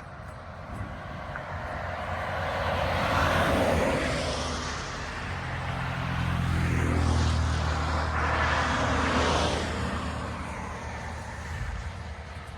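Two vehicles passing one after the other on a rain-wet road, each a swell of tyre hiss that rises and fades; the second carries a low engine hum.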